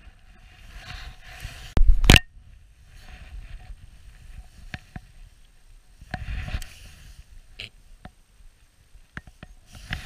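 Handling noise right at a body-worn camera: winter clothing rustling and scraping, with scattered clicks and a loud knock about two seconds in.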